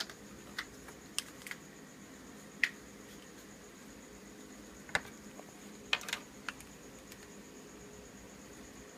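Scattered light clicks and taps of plastic Play-Doh pieces being handled: a dough can being opened and pink clay dug out with a small plastic tool. There are about eight short knocks, spaced irregularly, over a faint steady hum.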